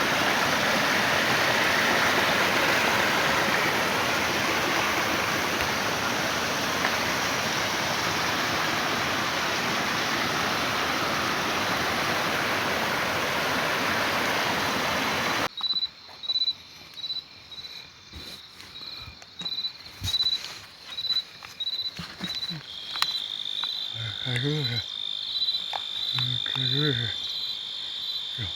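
A loud, even rushing noise that cuts off abruptly about halfway through. Then an insect calls in a high-pitched pulsing chirp, about one and a half pulses a second, turning into a steady trill. Near the end come two short, low calls.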